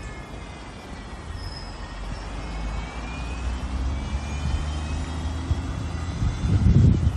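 Motor traffic: a vehicle engine running over a steady low rumble, growing louder, with its loudest surge near the end.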